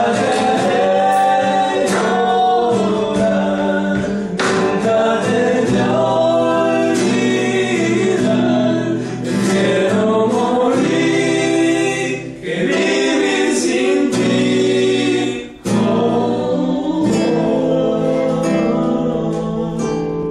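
Men singing a song together to a strummed acoustic guitar, with two short breaks in the singing partway through.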